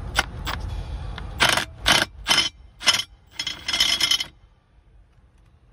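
About five short scrapes and rattles in quick succession, from a tool and hard plastic dash parts being handled under a car's dashboard. A low rumble comes first and stops about a second in.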